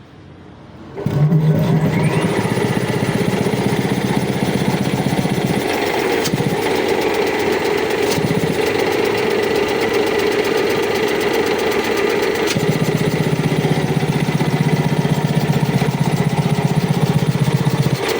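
Sanco VS20 25 HP high-pressure air compressor starting up about a second in, rising in pitch as it comes up to speed, then running steadily with a fast, even pulsing beat.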